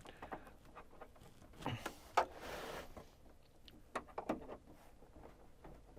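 Faint handling knocks and rustles while a TV's mains plug is being plugged in, with one sharper click about two seconds in and a brief hiss just after.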